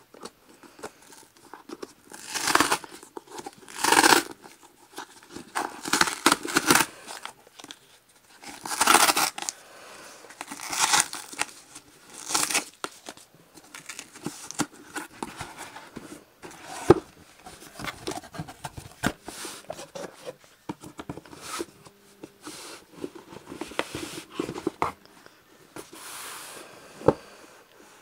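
Packaging of a beauty subscription box being torn open and handled: repeated bursts of tearing and crinkling paper, then quieter rustling with sharp clicks, one about 17 seconds in and another near the end.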